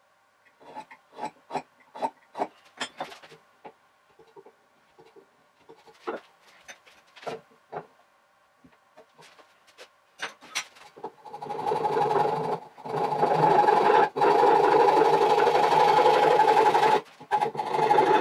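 Hand woodworking sped up four times: a scatter of sharp taps and clicks from marking out and handling tools, then, about two-thirds of the way through, a dense, fast buzzing rasp of a hand saw cutting wood, its strokes run together by the speed-up.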